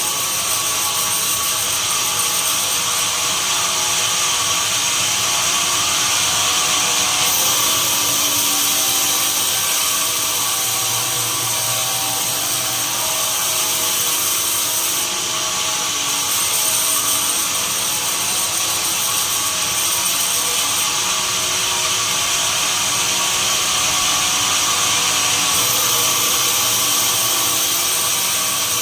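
Sawmill machinery running steadily and sawing pine: a loud, constant machine noise with a high-pitched whine and hiss, changing slightly in the upper range every few seconds.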